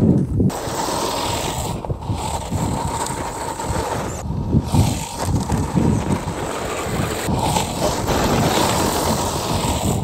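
Dual-motor 1/10-scale RC mud truck (an Axial SCX10-based build with a steel drivetrain) driving over frosty gravel: a steady electric motor and gear whine with the big tyres crunching over stones.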